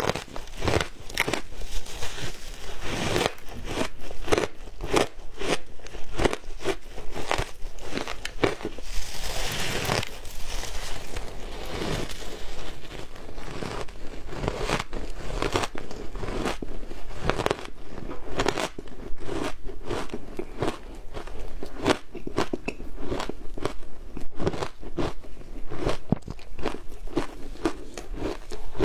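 Frozen matcha shaved ice being bitten and chewed: a continuous run of crisp, crackly crunches, several a second.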